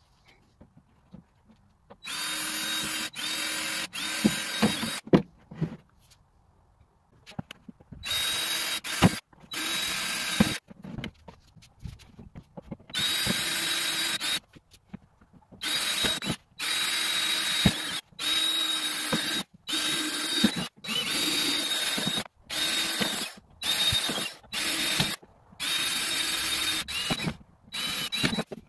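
Cordless drill running in repeated bursts of one to three seconds with short stops, boring holes through the plastic tub of a wheelbarrow along a crack. It starts about two seconds in, and each burst has a steady high whine.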